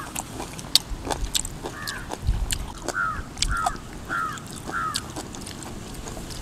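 A crow cawing five times in short arched calls about half a second apart, between about two and five seconds in, over scattered sharp clicks and crunches of someone chewing.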